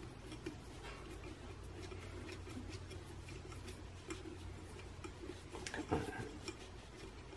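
Light ticks, clicks and rustles of motor wires being handled and fed through a trolling motor's housing, with one louder knock about six seconds in.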